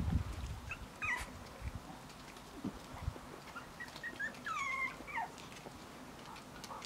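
Young puppies whimpering: a short high squeak about a second in, then a string of short thin whines, one of them longer and falling in pitch near the five-second mark. A few muffled thumps at the very start.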